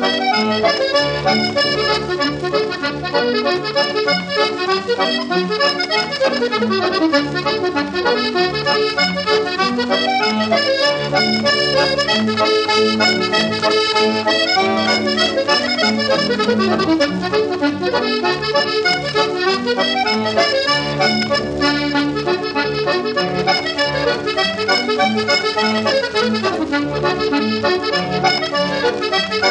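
Instrumental background music, a continuous run of quick notes.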